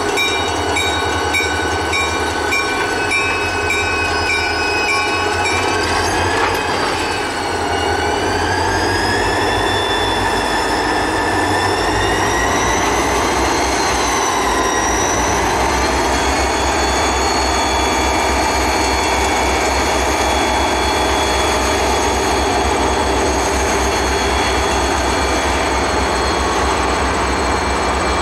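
Two diesel locomotives working hard, hauling a heavy loaded scrap train up a grade, with the engines' steady low rumble under it all. From about seven seconds in, a high squeal from the wheels wavers up and down in pitch, then holds steady as the freight cars roll past.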